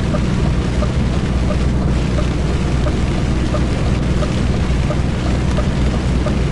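Steady drone of a lorry's diesel engine at motorway speed heard inside the cab, with tyre noise from the wet road.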